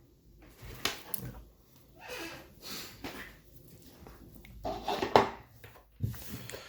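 Handling noises: scattered soft knocks and rustles as objects are picked up and moved, with a louder knock about a second in and another cluster around five seconds in.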